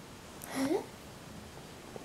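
A person's voice: one short murmured syllable rising in pitch, about half a second in, over a quiet room.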